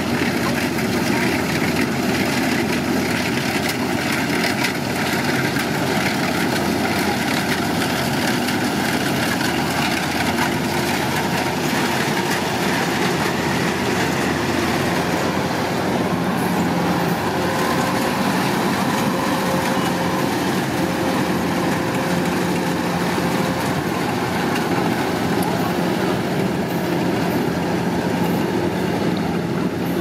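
Kubota DC-105X rice combine harvester running steadily under load while cutting and threshing: a diesel engine hum under the constant rattle and whir of the cutter and threshing drum. The high hiss grows a little duller about halfway through.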